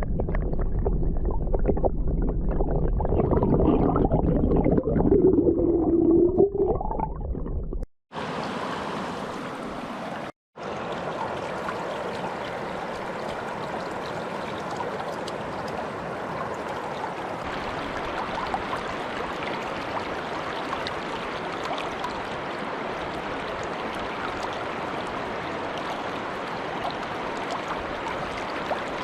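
River water heard underwater for about the first eight seconds: muffled gurgling with wavering tones. After a brief break, a river's steady rushing flow.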